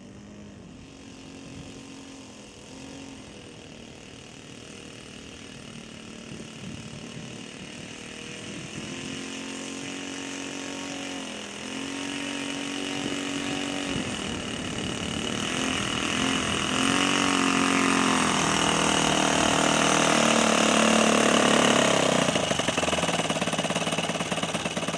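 Quarter-scale model airplane's M.B.M. 32 cc four-stroke gasoline engine running at taxi throttle, its note stepping up and down with short throttle blips. It grows steadily louder as the model taxis up close, then eases back slightly near the end.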